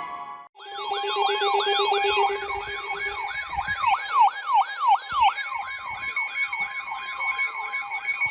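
Electronic siren yelping, its pitch sweeping down and back up about three times a second, layered with steady alert tones and preceded by a short burst of tones at the very start. It is an attention signal between weather-radio warning messages.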